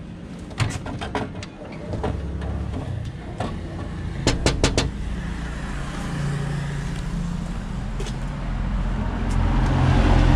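A road vehicle's engine running, growing louder over the last few seconds as it nears. Several sharp clicks or knocks sound about half a second in and again in a quick cluster about four seconds in.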